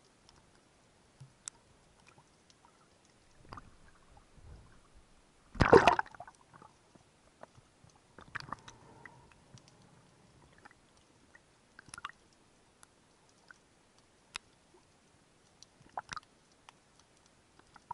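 Sound heard underwater by a submerged camera: scattered sharp clicks and taps, with one loud muffled rushing burst about six seconds in.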